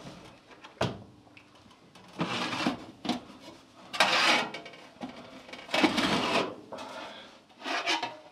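Handling noises from a freshly tempered steel sickle blade: about five short bursts of clatter and rubbing, with a few clicks.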